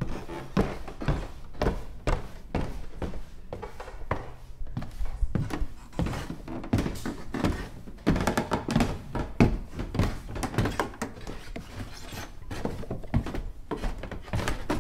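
A rapid, irregular series of knocks and thuds.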